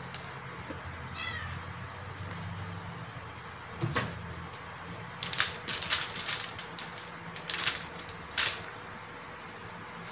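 Aluminium foil and banana leaf crinkling and crackling in sharp clusters under hands pressing the food into place, loudest in the second half. About a second in, a cat meows once, a short falling call.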